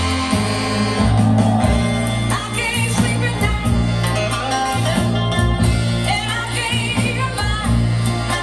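A song with a steady bass line and a singing voice over guitar accompaniment.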